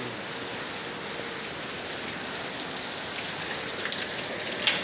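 Rain falling steadily onto flooded ground, with one sharp knock near the end.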